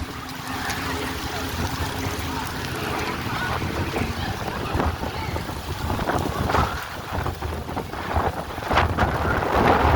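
Strong wind buffeting the microphone, a loud rushing with low rumble that swells in gusts, strongest near the end.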